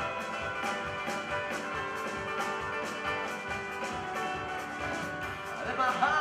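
Live folk-rock band playing an instrumental passage on accordion, acoustic guitar, upright bass, keyboard and drum kit over a steady drum beat. A voice comes in singing right at the end.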